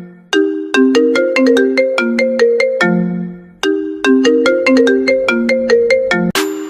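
iPhone ringtone playing: a fast melody of short, bright notes, its phrase heard twice with a short pause between. Near the end a brief burst of hiss cuts in.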